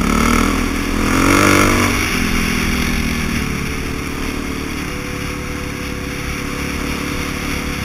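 Trail motorcycle engine heard from the rider's helmet camera, revving up about a second in and then running steadily under way, with wind rushing over the microphone.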